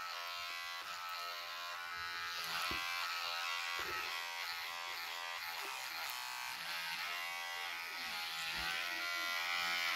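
Electric hair clippers buzzing steadily as they are run through the synthetic fur of a plush toy dog.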